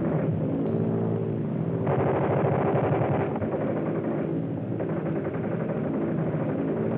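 Propeller airplane engine droning steadily, with a rougher, noisier stretch a couple of seconds in.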